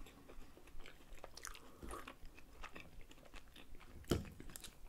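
Close-miked mouth sounds of chewing soft rolled blini filled with cottage cheese: a run of small clicks, with one louder click about four seconds in.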